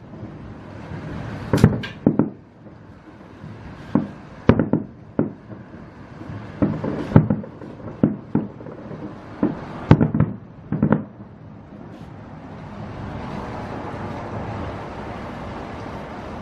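Aerial fireworks display bursting with a dozen or so sharp, irregular bangs, some in quick pairs. In the last few seconds the bangs give way to a steadier hissing noise.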